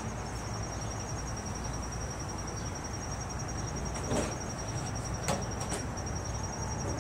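Steady high-pitched, evenly pulsing trill of crickets over a low background hum, with a couple of light knocks about four and five seconds in.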